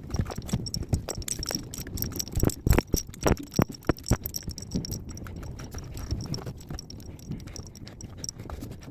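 Irregular footsteps, knocks and rattles with heavy breathing from people pushing a stalled truck by hand.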